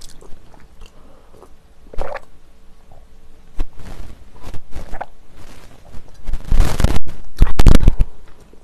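Close-miked drinking: sips and gulps of water from a glass, heard as scattered wet clicks. Near the end come the loudest sounds, two bursts of microphone noise.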